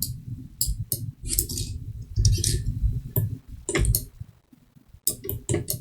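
Irregular clicks of a computer mouse and keyboard as 3D-modelling software is worked, picked up by the desk microphone over a low rumble.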